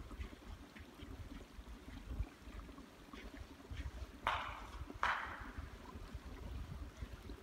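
Wind rumbling on the microphone outdoors. About four seconds in, two short harsh sounds come about a second apart and are the loudest events.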